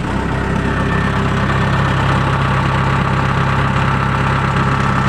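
Kubota DC-70 combine harvester's diesel engine running steadily, just after starting on a freshly fitted battery.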